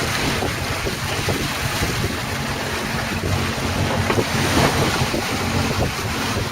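Wind buffeting the microphone and water rushing along the hull of a sailing yacht under way, with the yacht's engine droning steadily underneath.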